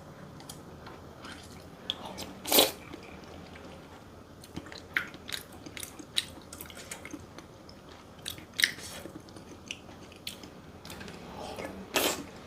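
Close-up eating sounds: chewing and biting with wet smacks and sharp clicks, the loudest about two and a half seconds in and again near the end.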